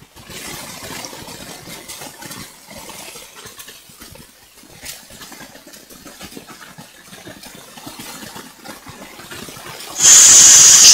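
Electrical noise in a microphone line: a faint crackling hiss, then a sudden loud burst of hissing static near the end. It is unwanted noise in the audio setup, and its source has not been found.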